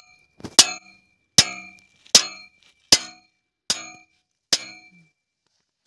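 Hammer striking the iron frame of a bullock-drawn plough, about seven sharp metallic blows, each ringing briefly, driving a replacement ploughshare into place. The blows stop near the end.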